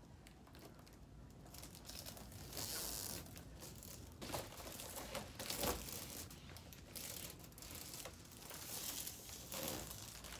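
Foil heart balloon crinkling and rustling as it is handled and its ribbon is tied, louder in a couple of stretches.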